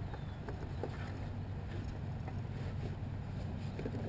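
Steady low hum with faint, scattered light ticks and knocks as a kayak moves slowly through lily pads.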